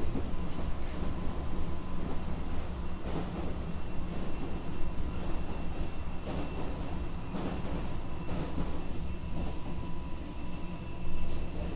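Kintetsu 6407-series electric commuter train running, heard from on board: a steady low rumble of wheels on rail with two faint steady whining tones and several separate sharp clacks.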